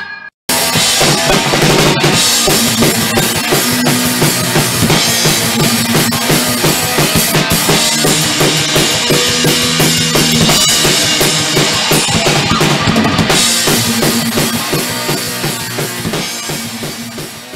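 Metal band playing live in a rehearsal room: a Ludwig drum kit pounding with bass drum and snare under a distorted electric guitar riff. The music cuts in after a brief gap right at the start and fades away near the end.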